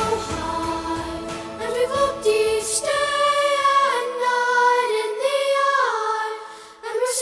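Soundtrack music: voices singing long held notes in harmony, like a choir. The low accompaniment drops away about a second and a half in, leaving the voices.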